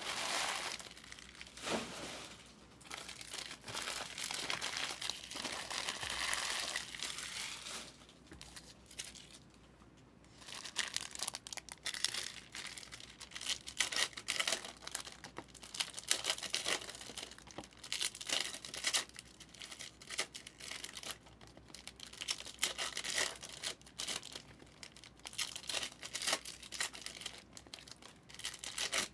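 Trading-card pack wrappers being torn open and crinkled as the cards are handled. There are about eight seconds of continuous crinkling, then, from about ten seconds in, a run of short crackling tears and rustles.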